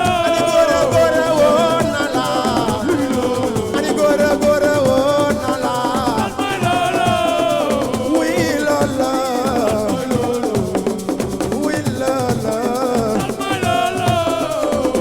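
Assiko band music: steady drum and shaker rhythm under a wavering lead melody with long held notes.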